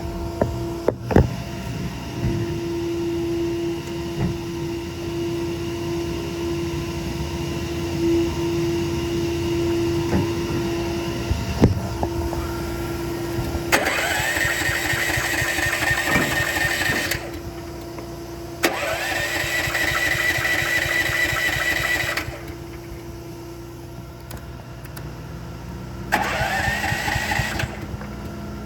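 Miller Blue Star welder-generator's engine being cranked three times, each a whine that rises and holds for a few seconds, the last one shorter, without the engine catching; the owner thinks it is out of gas. A steady hum runs through the first ten seconds or so.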